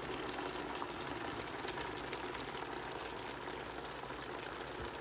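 A pot of steak, carrots and peppers cooking in sauce on the stove, with a steady bubbling, sizzling hiss and light crackles.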